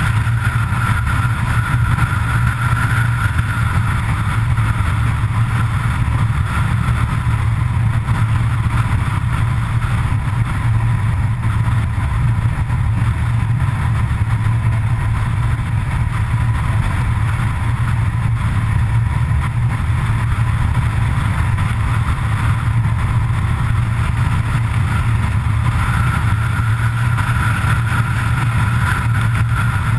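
Car driving at steady cruising speed: a constant low engine and tyre drone with road noise, unchanging throughout.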